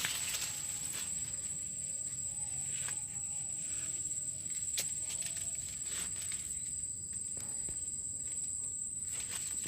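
A steady high-pitched insect trill, with a few sharp clicks and soft rustling from footsteps among dry maize leaves.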